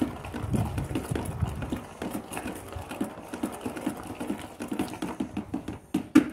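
A long stirring stick churning a tub of frothy homemade liquid soap thinned with water, sloshing the mixture and knocking and scraping against the plastic sides in quick, irregular taps.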